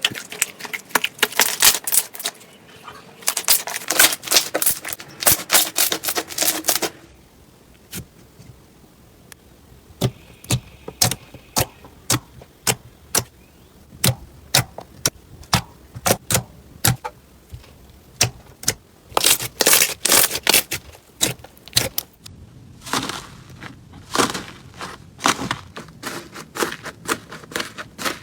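Slime being pressed and worked by hand, giving crisp clicking and crackling pops that come in dense runs at the start and again near the end, with sparser single pops in between.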